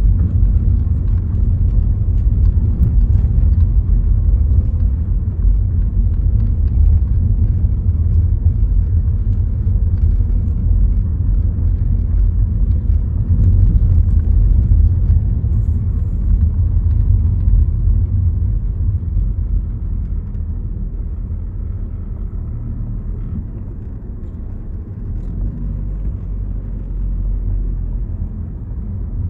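Car driving along a road: a steady low rumble of road and wind noise, easing a little past the midpoint.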